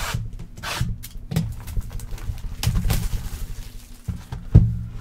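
Cardboard trading-card hobby box being opened and handled: irregular rustling, scraping and light knocks of the box and its wrapping. The loudest is a thump about four and a half seconds in.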